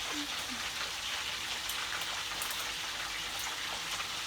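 Fish frying in hot oil in a pot: a steady sizzle with scattered small crackles and spits.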